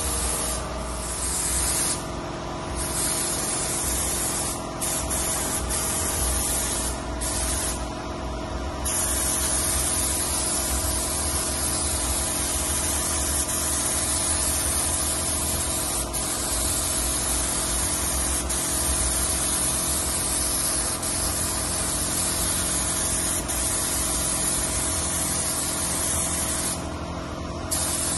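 Compressed-air paint spray gun spraying in a steady hiss that breaks off briefly a few times as the trigger is let go between passes, over a steady motor hum.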